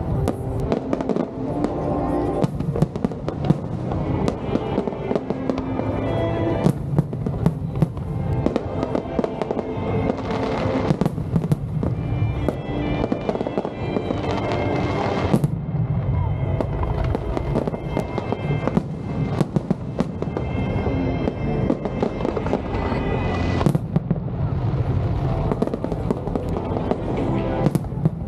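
Fireworks display: many shells bursting in quick, irregular succession with sharp bangs and a continuous low rumble, over music playing throughout.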